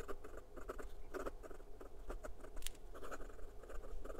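Hongdian N1S fountain pen's extra fine steel nib scratching across notebook paper in quick cursive writing, a run of short, irregular strokes.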